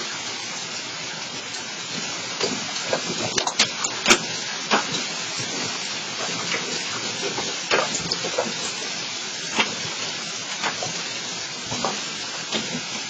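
Heavy rain falling in a steady hiss, with irregular sharp ticks and knocks of hailstones striking, the loudest in a cluster about four seconds in.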